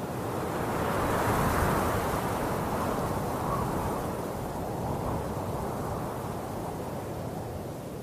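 A steady rushing noise with no tones or clicks, swelling about a second in and slowly easing off.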